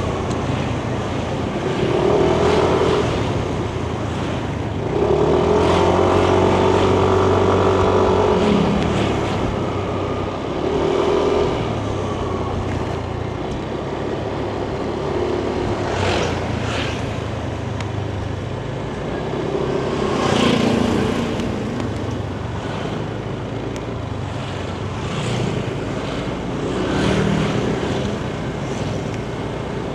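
Yamaha Nmax 155 scooter's single-cylinder engine running under way, its note swelling several times as the throttle opens, over steady road and wind noise.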